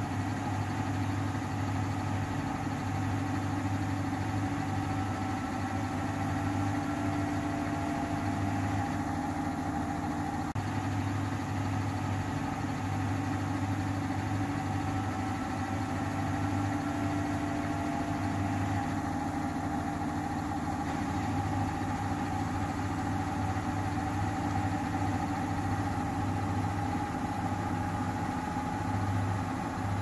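Samsung front-loading washing machine running near the end of a quick-wash cycle: a steady motor hum from the turning drum, with slight drifts in pitch.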